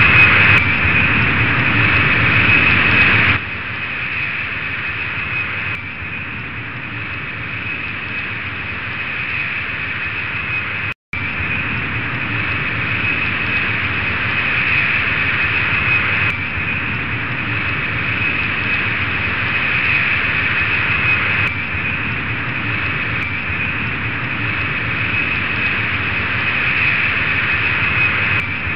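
Jet airliner engine sound effect: a steady high whine over a rushing noise. It is louder for the first three seconds or so, then settles lower, and cuts out for a moment about eleven seconds in.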